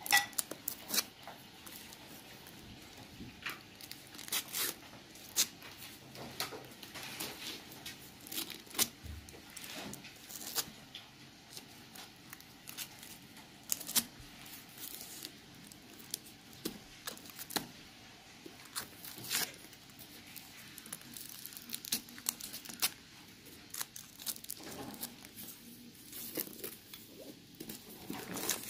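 Gold aluminium foil wrapper on a large chocolate Easter egg being picked at and peeled by fingers, with irregular crinkling and tearing crackles.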